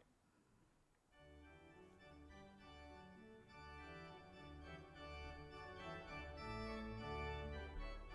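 Organ prelude beginning about a second in: sustained chords over a low bass line, growing gradually louder.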